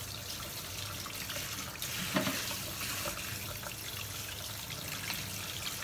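Kitchen tap running into a sink while squid is rinsed by hand under it, with small splashes and a light knock about two seconds in.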